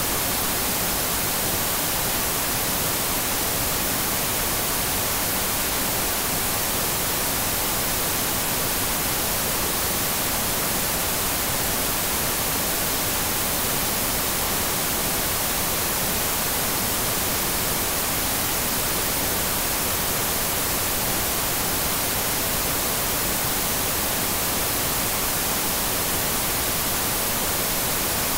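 TV static: a steady, even hiss, brightest in the treble, that never changes.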